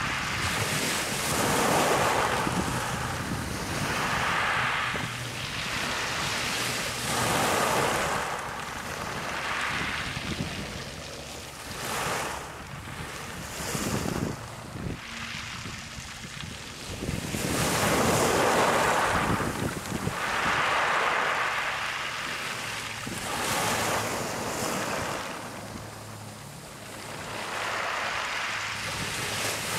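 Small waves breaking and washing up over a pebble beach and draining back, heard as swells of rushing noise every two to three seconds, the loudest a little past the middle.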